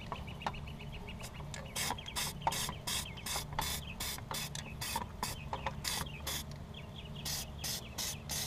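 Aerosol spray can of high-temperature silicone coating spraying in many short hissing spurts, about two or three a second, with a short pause near the end.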